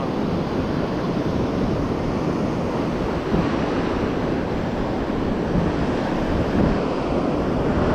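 Surf washing onto the beach in a steady roar, with wind buffeting the microphone.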